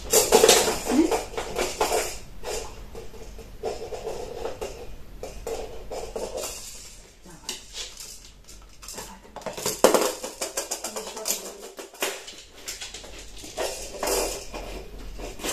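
Hard plastic rings of a children's stacking-pyramid toy knocking and clattering as a dog picks a ring up in its mouth and handles it. The sound comes as irregular knocks, busiest at the start, with a sharp knock about ten seconds in.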